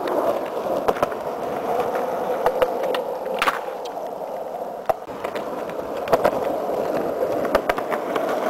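Skateboard wheels rolling steadily over rough concrete, broken by a series of sharp clacks as the board's deck and wheels smack the pavement.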